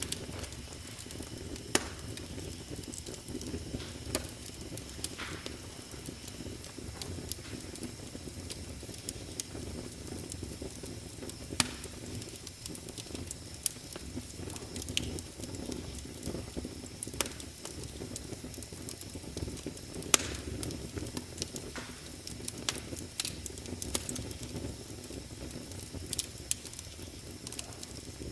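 Wood fire crackling in a fireplace: a steady low rush of burning with irregular sharp pops and snaps throughout, the two loudest pops about 11 and 20 seconds in.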